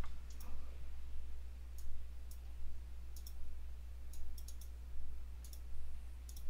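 Computer mouse clicking: single clicks and a few quick double clicks spread across several seconds, over a steady low electrical hum.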